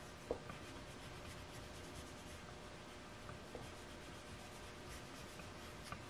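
Faint scratchy rubbing of an oil pastel stick on paper as an area is colored in solid, with a few soft ticks, the clearest about a third of a second in.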